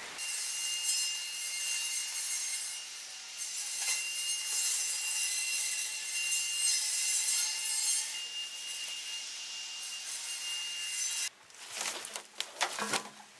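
Makita 36V cordless brush cutter running and cutting through grass and weeds: a scraping hiss with a steady high motor whine. Near the end it stops, and leaves and vines rustle in irregular crackles as they are pulled away.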